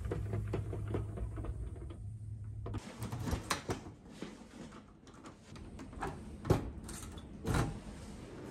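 A capsule-hotel bed's pull-down entrance blind rattling as it is slid by hand over a low hum. Then a run of clicks and knocks as a key is worked in a locker door's lock, with two sharp clunks near the end.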